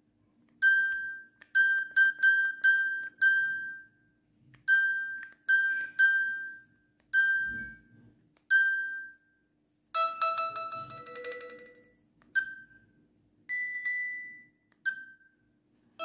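Alcatel OT-222 flip phone's keypad beeps as its menu keys are pressed: about ten short electronic beeps of one pitch, each fading quickly, in an uneven rhythm. About ten seconds in comes a fuller multi-note phone tone lasting a couple of seconds, then a few more beeps, the longest and loudest one near the end.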